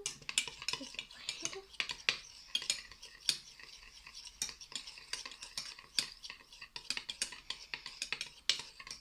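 A fork stirring and scraping in a bowl, clicking against the sides again and again at an uneven pace, as soap and water are mixed into slime.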